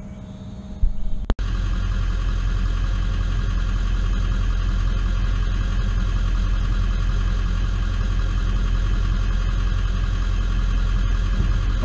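A vehicle's engine idling steadily, heard from inside the cabin as a constant low hum. A brief knock comes about a second in, just before the idling starts.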